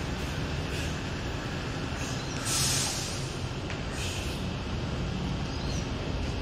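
Coach's diesel engine idling with a steady low rumble. About two and a half seconds in comes a loud hiss of compressed air, and a shorter one near four seconds, as the bus's air brakes let off air.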